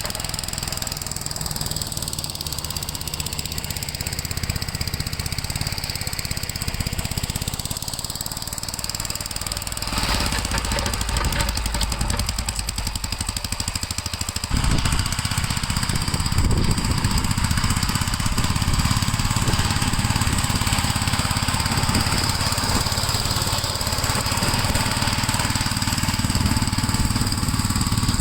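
Gravely L8 walk-behind tractor engine running steadily. It gets louder about ten seconds in and louder again about halfway through.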